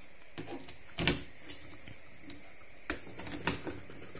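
A few sharp clicks from hand-tool work on an aluminium-edged plywood case: one about a second in and two more near the end. A cricket's steady high trill runs underneath.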